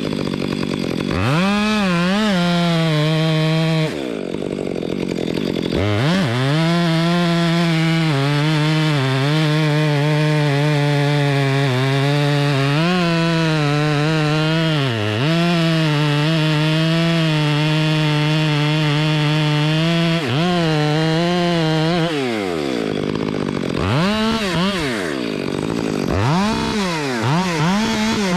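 Two-stroke chainsaw cutting wood, held at high revs under load. Its pitch sags and recovers several times, and it eases off for a couple of seconds a few seconds in.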